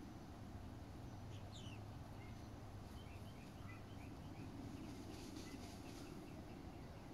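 Faint outdoor ambience: a steady low hum with small birds chirping in the distance. There is one quick falling chirp about a second in, and a run of short chirps from about three to nearly five seconds in.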